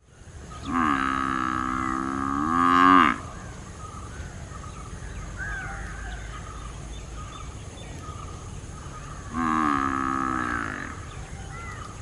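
Water buffalo lowing twice. The first call lasts about two and a half seconds, rising in pitch and getting louder toward its end; a second, shorter call comes near the end.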